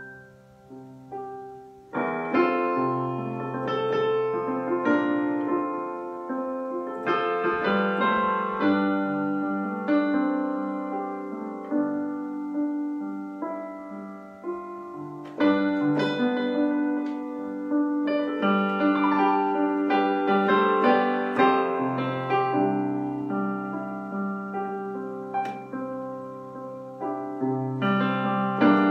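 Electronic keyboard with a piano sound, played solo in sustained chords under a melody. It starts softly, and a loud chord comes in about two seconds in.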